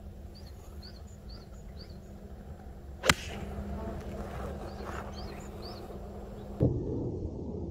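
A golf iron strikes a ball off the tee about three seconds in, a single sharp crack. A small bird chirps in short repeated high notes before and after the shot. A dull thump comes near the end.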